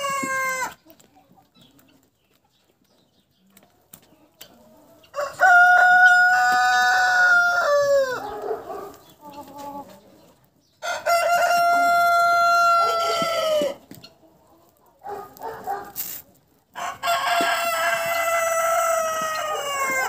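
Roosters crowing: three long crows about six seconds apart, each roughly three seconds long, held at a level pitch and dropping at the end. The tail of an earlier crow is heard right at the start.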